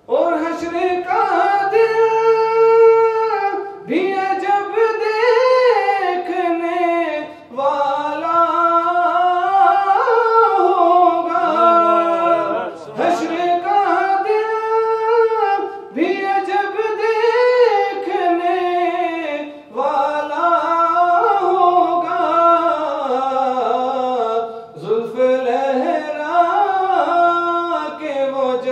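A man singing a naat, unaccompanied: long drawn-out phrases with sliding pitch, broken by short breaths every three to five seconds.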